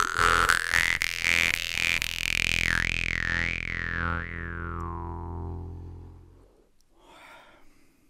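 Jew's harp, a FIRE model from Tatarstan, played with a deep steady drone. Rhythmic plucks sound in the first second or so. Then the overtone melody rises and wavers up and down as the mouth shapes it, while the last pluck rings on and fades out about six seconds in.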